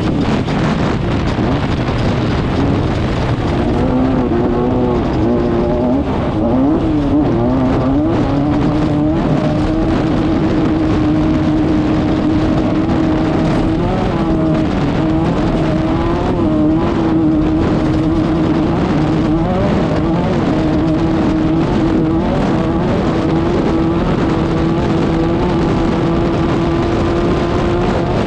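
Class 5/1600 desert race car's air-cooled 1600 cc VW engine running hard under load. Its pitch dips and rises several times early on, then holds steady for the rest of the time.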